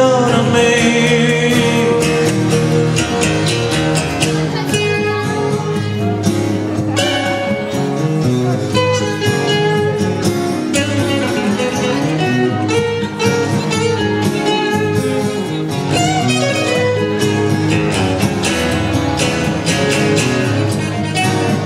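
Live acoustic guitar strumming with a second guitar playing along, in an instrumental passage with no vocals.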